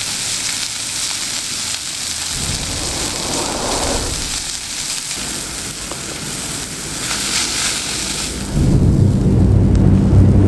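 Steak sizzling in a frying pan on a camp stove, a steady hiss that fades near the end as it is lifted out. Under it, the low rumble of traffic on the bridge overhead comes in after a couple of seconds and grows loud near the end.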